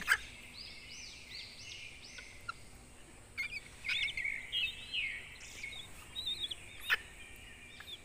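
Young Asian koel chick giving a series of short, high chirps, begging as it is hand-fed, with a sharp click about seven seconds in.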